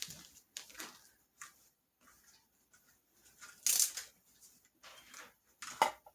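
Packaging wrap rustling and crinkling in short irregular bursts as a ball-jointed doll is unwrapped by hand, with two louder handling rustles, one near the middle and one near the end.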